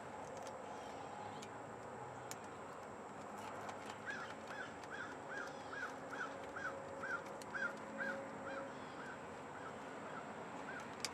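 A bird calling outside: a quick run of short, repeated rising-and-falling notes, about two or three a second, starting about four seconds in and fading toward the end. A few faint clicks over a low steady background.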